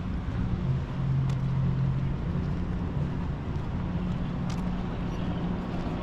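An engine running with a steady low hum that shifts a little in pitch, over outdoor background noise.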